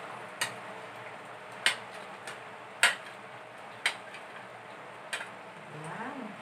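Sharp clinks of a metal spoon against a ceramic plate, five of them about a second apart, as chunks of potato and carrot are pushed off the plate into a wok of curry, over a steady low hiss.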